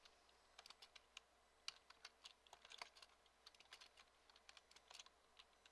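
Typing on a computer keyboard: a run of faint, irregularly spaced keystrokes.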